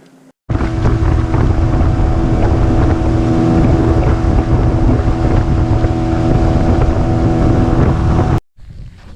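Motorboat engine running steadily at speed, with heavy wind buffeting the microphone. It starts suddenly about half a second in and cuts off abruptly near the end.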